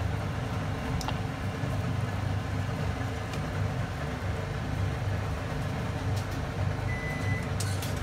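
A steady low mechanical hum runs throughout, with a few faint clicks. A short high electronic beep sounds once near the end.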